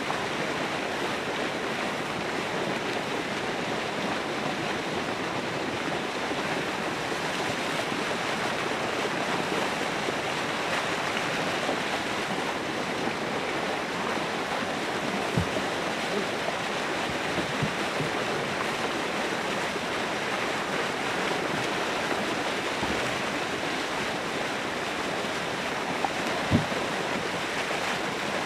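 Steady rushing of churning water near the shore, with a few short knocks in the second half.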